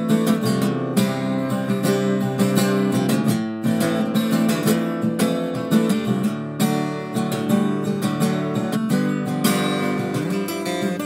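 Background music: a guitar being strummed, with chords ringing on.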